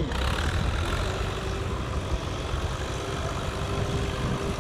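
Fiat tractor's diesel engine running steadily under load as it drags a rotary tiller through a flooded rice paddy.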